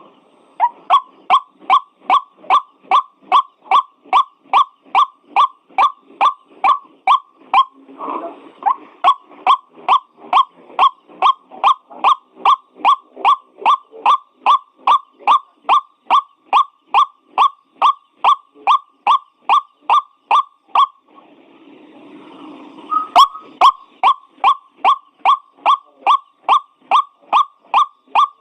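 White-breasted waterhen calling as a bird-lure recording: a long, even run of the same short upward-sweeping note, about two or three a second. There is a brief rough break near 8 seconds and a pause of about two seconds after 21 seconds before the calling resumes.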